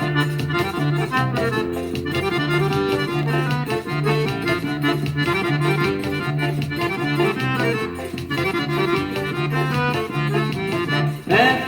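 Instrumental introduction of a forró song: accordion playing the melody over a steady, bouncing bass line.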